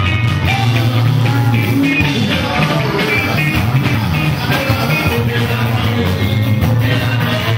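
Live band music: electric guitars over a steady bass line, with a singer on the microphone.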